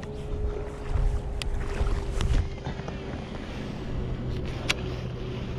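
Steady low drone with gusts of wind rumbling on the microphone, about a second in and again near the middle, and a few sharp clicks.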